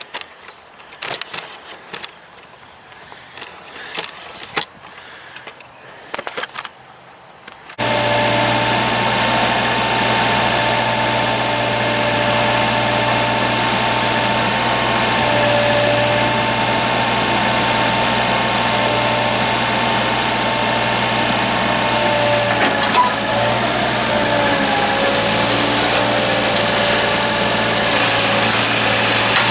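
A few scattered knocks and handling sounds, then about eight seconds in a tractor engine starts up abruptly and runs steadily. Its pitch shifts slightly a few seconds before the end.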